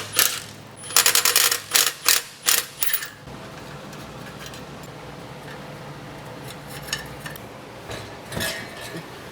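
Hand tools on exhaust hardware: a quick run of metallic clicks and clanks, like a ratchet wrench working, during the first three seconds while the X-pipe braces come off. A steady low hum follows.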